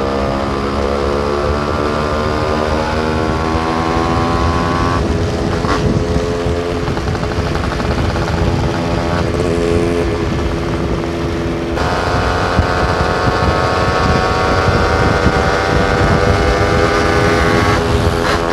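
Yamaha RX 135 single-cylinder two-stroke motorcycle engine under way, its pitch climbing with throttle and dropping sharply at gear changes about five and twelve seconds in.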